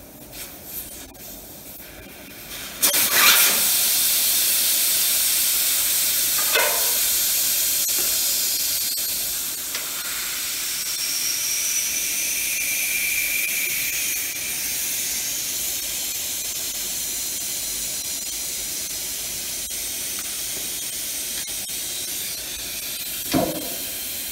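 Air hissing out of a car tire through its open valve stem, the valve core removed to deflate it. The hiss starts loud about three seconds in and slowly weakens, with a faint whistle in the middle and a couple of short knocks.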